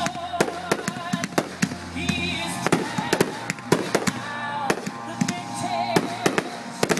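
Consumer 1.4G aerial fireworks going off in a finale barrage: a rapid, irregular run of sharp bangs, several a second, with music underneath.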